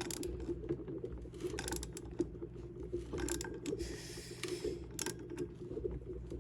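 Ratchet wrench clicking and metal tools knocking as a bolt is tightened on a small mini bike engine, a flathead screwdriver wedged in to keep the engine from turning; a short scraping rasp about four seconds in.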